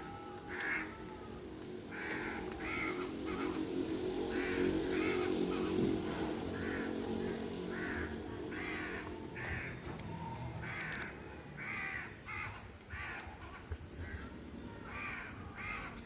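Crows cawing over and over in short, harsh calls, roughly one every second, with a steady low hum underneath that is strongest in the first half.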